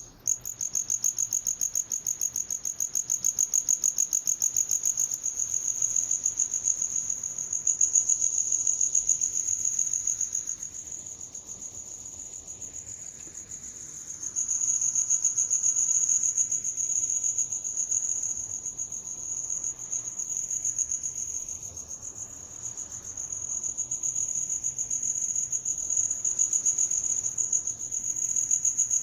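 Cricket chirping in a continuous fast trill, one high steady note, its loudness swelling and fading every several seconds.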